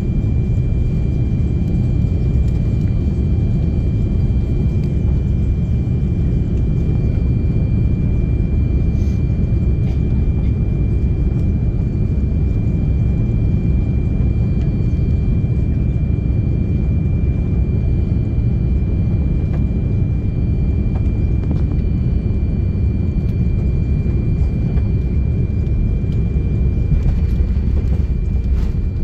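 Steady low rumble of engine and airflow noise inside an airliner cabin on final approach, with a faint steady high whine above it.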